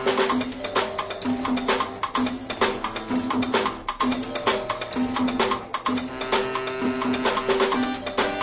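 Background music with busy percussion and a repeating low note pattern.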